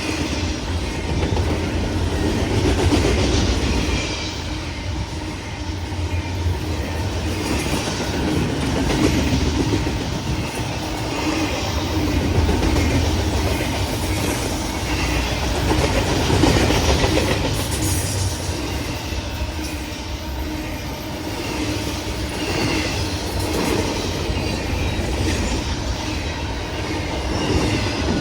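Freight cars of a CN intermodal train rolling steadily past, wheels clicking over the rail joints, with a brief high wheel squeal now and then.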